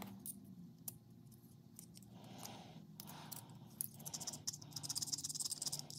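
Faint clicks and scratches of small steel monkey-wrench parts handled and scraped in the hands, ending in a quicker, denser run of scratching over the last couple of seconds.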